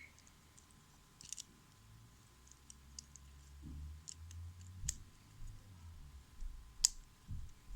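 Scattered sharp clicks and taps from a plastic Bakugan Dragonoid figure being worked by hand to fold it into a ball. The clicks come at irregular times, with the loudest one near the end.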